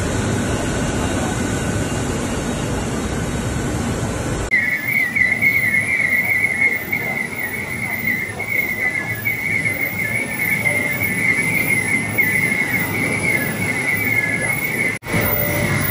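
ESJ5.0 high-speed rotogravure printing press running with a steady machine noise. About four and a half seconds in, the sound changes abruptly to a continuous high, wavering squeal from machinery over lower running noise, with a brief dropout near the end.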